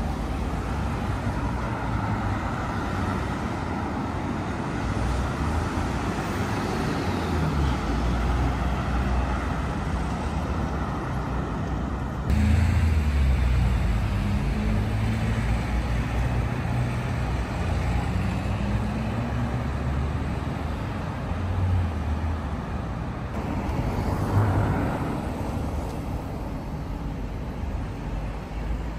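Road traffic on a town street: cars driving past, a continuous low rumble of engines and tyres, with passing engine notes sliding up and down in pitch partway through.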